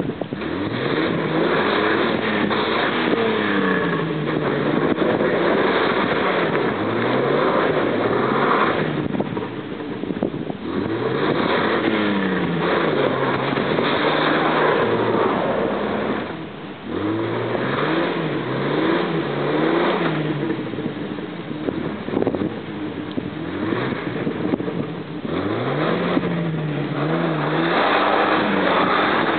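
Jeep Wrangler's engine revving up and dropping back again and again, with one brief easing off partway through, as the vehicle struggles for grip in deep mud on a slope.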